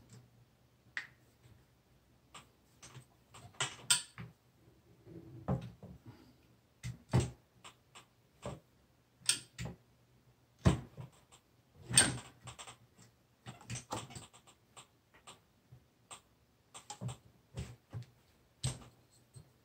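Irregular clicks and knocks of metal and hard plastic as a Browning AB3 bolt-action rifle is handled and its barreled action is worked back into the stock.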